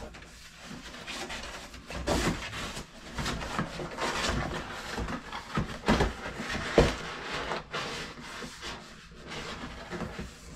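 Cardboard boxes and plastic packaging being handled and packed one inside another: irregular rustling and scraping with several sharp knocks, the loudest about seven seconds in.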